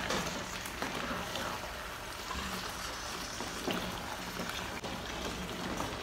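Wooden spatula stirring thick yam porridge in an aluminium pot as it simmers on the stove: a steady wet bubbling with a couple of soft knocks of the spatula against the pot.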